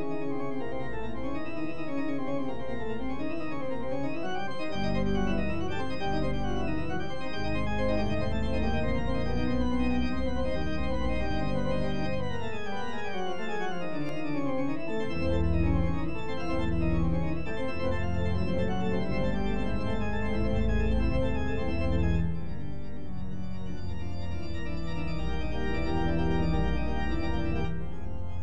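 Pipe organ playing rapid cascading runs in a dense wall of sound, with a long downward sweep near the middle, over heavy low chords that come in about five seconds in and again around fifteen seconds.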